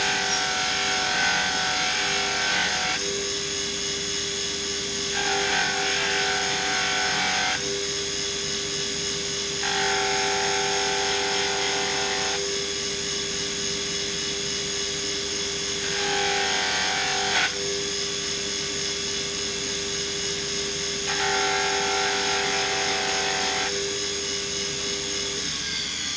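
A power tool's motor running steadily while a stainless steel bolt is pressed against it in five spells of a few seconds each, each adding a harsher grinding note: polishing the bolt. The motor stops shortly before the end.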